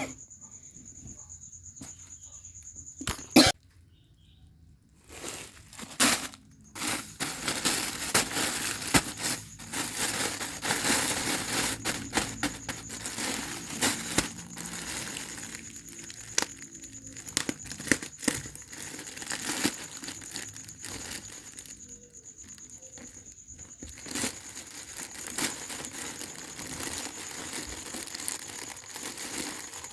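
Packaging being opened and handled: irregular crinkling and rustling with some tearing, preceded by a few sharp clicks in the first several seconds. A faint steady high whine sits underneath.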